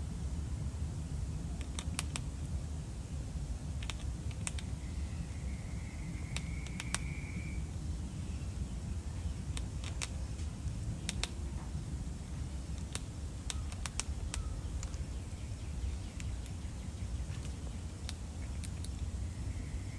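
Gray squirrel gnawing kernels off a dried ear of corn: irregular sharp crunching clicks over a steady low rumble.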